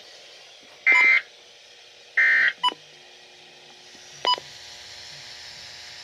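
Weather radio receiver sounding two short bursts of SAME digital alert-code tones, about a second apart, then a brief blip and a click over a faint steady hum.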